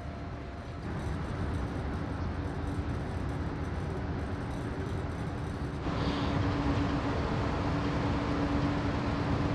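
Steady low rumble of a large car ferry's machinery, heard from the open deck while it manoeuvres at the quay. About six seconds in it gets louder and a constant hum joins it.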